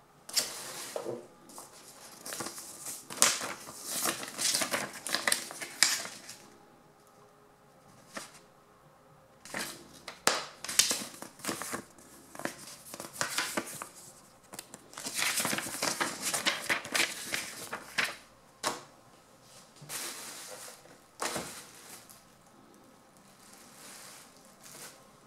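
Paper instruction sheets and plastic packaging rustling and crinkling as they are handled, in irregular bursts of a few seconds with short quiet pauses between them.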